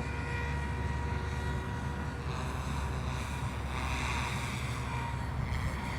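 Strong wind buffeting the microphone with a steady low rumble, over which the thin, steady-pitched whine of a SAB Goblin Fireball electric RC helicopter's motor and rotor blades is heard, clearest for the first two seconds before a hissing gust rises over it.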